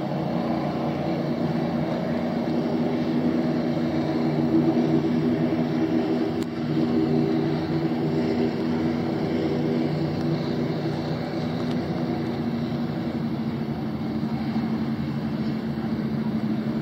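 Boat engine running with a steady, even hum.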